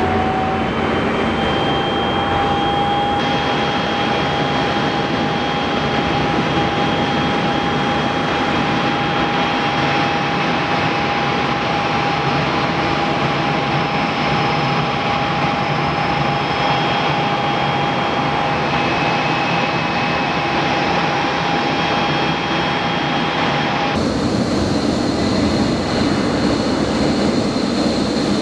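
Jet airliner engines running loud, with a steady turbine whine over a rush of noise; the whine rises a little in the first couple of seconds and then holds. About 24 seconds in, the sound changes abruptly to a different take of jet noise.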